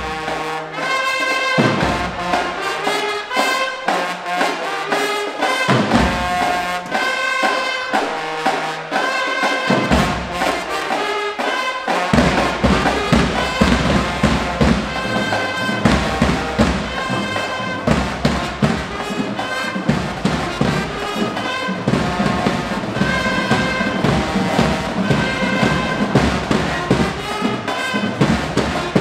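High school marching band playing: trumpets and other brass, clarinets and saxophone over snare and bass drums. The first twelve seconds or so are horn phrases with breaks between them, and then the full band plays continuously with dense drumming.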